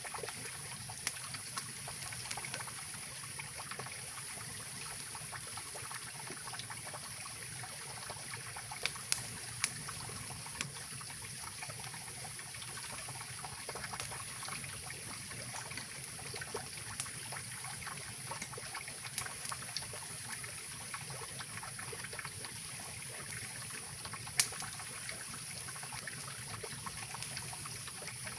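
Mountain river rushing steadily, with scattered sharp crackles and pops from a wood campfire; the loudest pop comes near the end.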